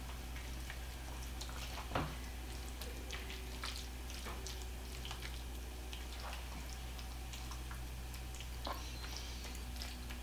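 Wooden spoon spreading a creamy pasta casserole mixture in a glass baking dish: soft wet squishes and scrapes, with one sharper knock about two seconds in. A steady low hum runs underneath.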